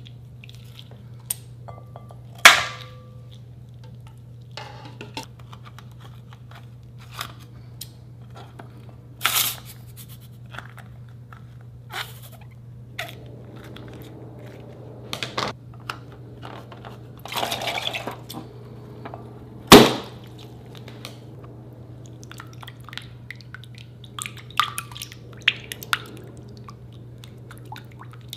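Containers and utensils being handled and set down while making slime: scattered clicks and knocks, the loudest about two and a half seconds in and about twenty seconds in, with a brief rustle just before the second. A steady low hum runs underneath.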